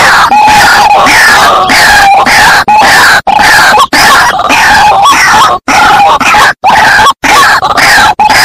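White-breasted waterhen (ruak-ruak) calls from a bird-trapping lure recording: loud, rapid harsh notes repeated several times a second, each sliding down in pitch, broken by a few brief silent gaps.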